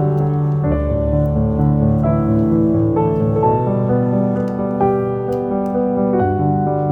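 Background piano music, soft sustained chords changing every second or so.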